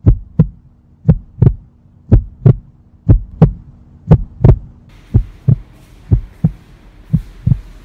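Heartbeat sound effect: loud double thumps, lub-dub, about once a second over a low steady hum. A faint hiss of room noise joins about five seconds in.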